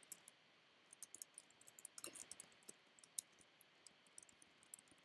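Computer keyboard typing: faint, irregular key clicks that start about a second in.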